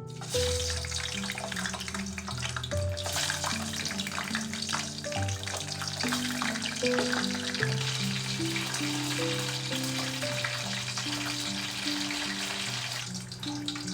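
Food sizzling and crackling as it fries in a pan, under background music with sustained notes.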